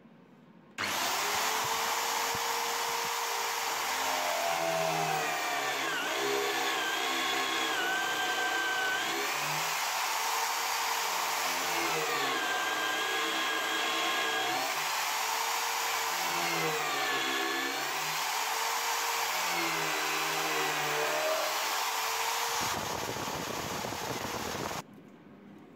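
Electric drill in a drill stand boring a hole through the hub of a pine wheel: a steady motor whine and the hiss of cutting, with the pitch dipping again and again as the bit bites into the wood under load. It cuts off shortly before the end.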